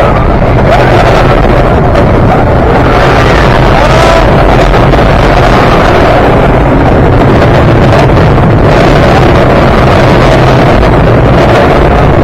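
Wind buffeting the microphone heavily, over the steady rumble of a wooden roller coaster train running along its track at speed.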